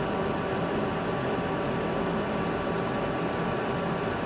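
Steady hum of a running electric machine, with several unchanging tones over a constant whir.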